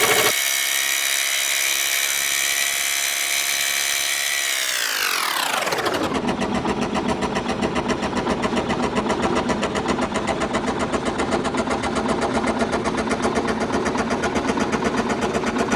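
Scroll saw running and cutting wood. Its pitch falls over about a second and a half around five seconds in, after which it runs with a fast, even chatter.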